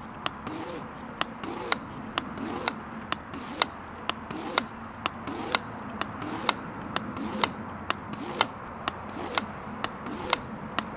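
High-pressure hand air pump worked in steady strokes, about two a second: each stroke gives a sharp metallic click with a short ring and a whine that rises and falls. It is pumping air into a disposable lighter, building pressure toward 40 atmospheres.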